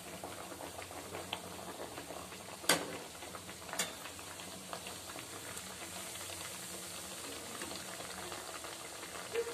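Sweet wheat-flour puris deep-frying in hot oil in a kadai: a steady sizzle and bubbling. Two sharp knocks about a second apart, a little under three seconds in, from the metal slotted skimmer against the pan.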